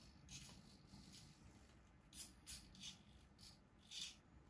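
Near silence: room tone with a few faint, brief hisses scattered through it.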